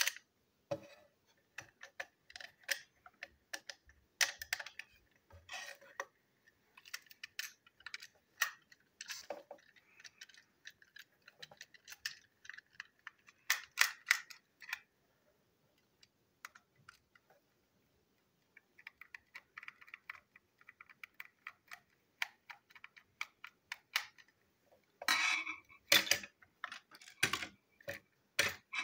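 Plastic toy train engine being handled and taken apart by hand with a small screwdriver: a string of small irregular clicks and taps of plastic parts, pausing for a few seconds about halfway through, with a louder cluster of clacks near the end.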